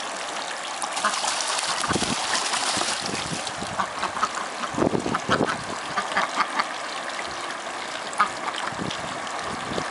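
Steady trickle of water running into a small duck pond, with irregular small splashes as ducks bathe and dabble with their bills in the water.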